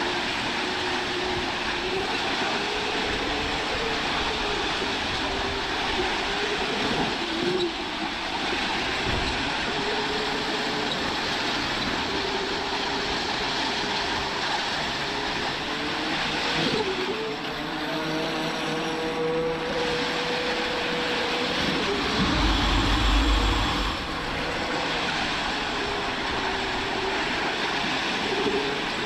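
Rollers of a long roller slide running under a rider at speed: a continuous rolling rumble with a steady hum that wavers in pitch as the speed changes, swelling lower and louder a little over two-thirds of the way through.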